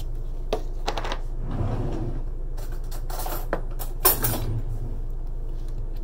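Ice cream pint containers and their lids handled on a kitchen countertop: a few light clicks and scrapes, with one sharper knock about four seconds in, over a low steady hum.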